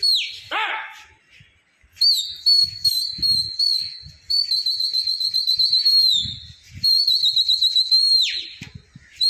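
A pigeon flyer's shrill whistling to the flock. A short falling whistle comes first, then three long high whistles with a fast warble, each ending in a downward glide, with short breaks between them.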